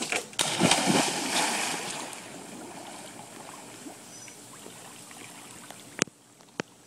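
A person jumping feet-first into a swimming pool: a big splash about half a second in that dies away over a couple of seconds into the steady sound of settling water. Two sharp clicks near the end.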